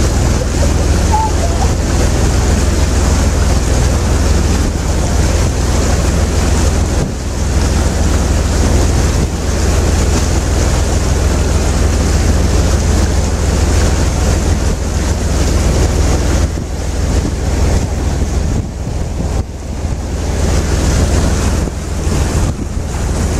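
Wind buffeting the microphone on a moving river tour boat: a steady low rumble with a rushing hiss over it that swells and dips with the gusts.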